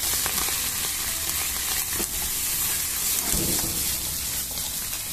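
Morels and Alpine leek (gyoja ninniku) leaves sizzling steadily in butter in a nonstick frying pan. They are stirred with wooden chopsticks, which give a few light clicks against the pan.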